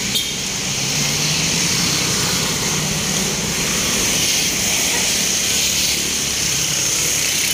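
Steady street traffic noise, with a low motor engine hum running under an even hiss.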